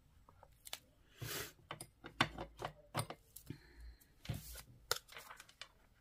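Paper and cardstock being handled: light rustles and small taps as a square of patterned paper is glued and pressed onto a black cardstock square, with two longer papery swishes, one about a second in and one past four seconds in.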